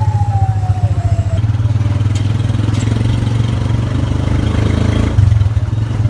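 Vehicle engine running steadily, heard from on board, with a single falling tone in the first second and a half.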